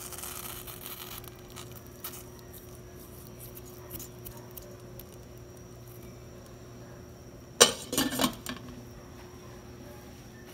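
A pot of chicken soup boiling, with a few light clinks, then a short clatter of glass and metal a little after halfway as the glass lid is set back on the steel pot.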